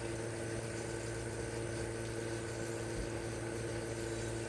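A machine's steady hum with several constant tones held over a faint hiss, unchanging throughout.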